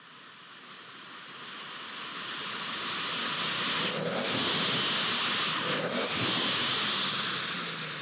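ProCharger Race Valve, a blow-off valve venting supercharger boost air straight to atmosphere: a rushing whoosh that builds over several seconds, then two loud whooshes about two seconds apart with a short break between them.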